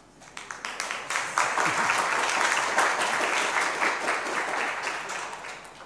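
Audience applauding: a few scattered claps that quickly swell into full applause, hold steady, then die away near the end.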